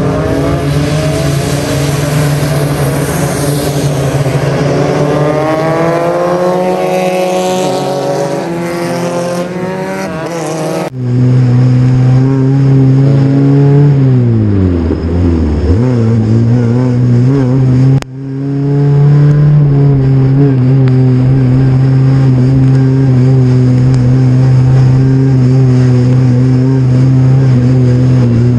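Super FJ single-seater race car engines running. At first several engines sound together, their notes rising and falling as the cars go by. Then a single engine holds steady revs, dipping briefly and picking up again, and runs on evenly after an abrupt cut.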